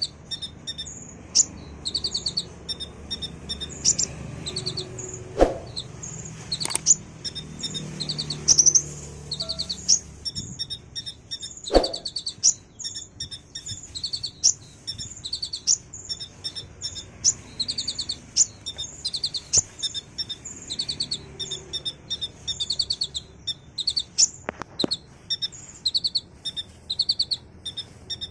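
Kolibri ninja (a small sunbird kept as a songbird in Indonesia) singing a continuous, fast, high-pitched chirping song of rapid repeated trills, mixed with imitations of other birds' calls. A few sharp clicks sound along the way.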